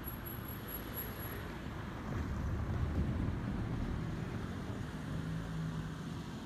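Road traffic: a motor vehicle passing, its engine and tyre noise swelling about two seconds in, then a low steady engine hum near the end.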